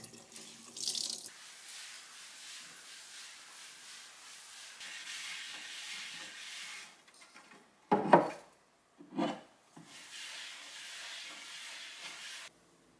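Running tap water at a stainless steel sink trails off in the first second. A cloth then rubs softly and steadily along a wooden shelf, broken about eight seconds in by two loud knocks a second apart.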